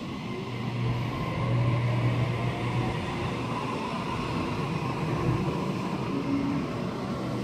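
Sydney Trains Waratah double-deck electric train moving past along the platform, its electric traction motors whining in a slowly rising pitch as it gathers speed, over a steady rumble of wheels and carriages.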